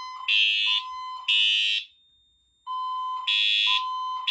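Fire alarm sounders on a Firelite MS-5012 panel in alarm, sounding the temporal-3 evacuation pattern: groups of three pulses separated by a short pause. A plain steady tone and a louder, harsher horn each pulse slightly out of step with each other.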